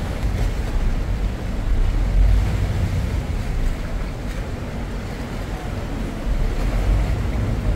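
Wind buffeting the microphone over the low rumble of a moving tour boat and the wash of water. The rumble swells about two seconds in and again near the end.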